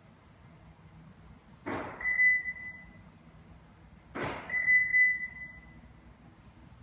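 Twice, a car's central door locks clunk and a Hollywood Siren III alarm's answer-back kit replies with a steady high beep lasting about a second, confirming the remote lock or unlock.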